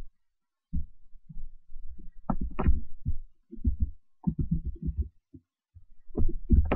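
Muffled, irregular low thumps and knocks in quick clusters, with a few sharper clicks about two and a half seconds in and near the end.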